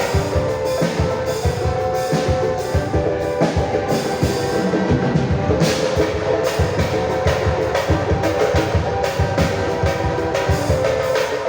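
Pagode samba band playing an instrumental passage: a dense, steady percussion beat under cavaquinho and other pitched instruments, with no singing.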